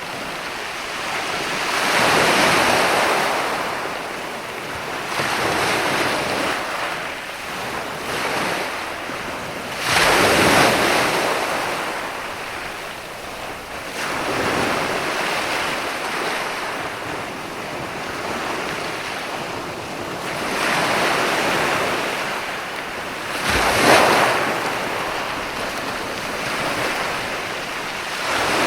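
Ocean waves breaking on the shore, a continuous wash of surf that swells and falls back every few seconds, with sharper crashes at about ten seconds and again near twenty-four seconds.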